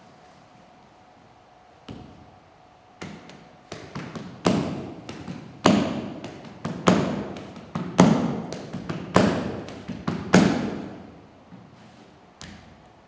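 A run of heavy percussive thuds, each ringing out for about a second, building from scattered taps into loud hits roughly every second and a bit, with lighter taps between, then thinning out near the end.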